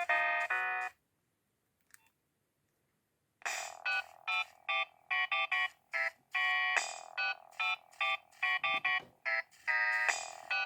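Nokia 6610 mobile phone ringtones playing through the phone's speaker as electronic melodies. One tune stops about a second in, a faint click follows, and about three and a half seconds in a new tune of short, quick notes begins.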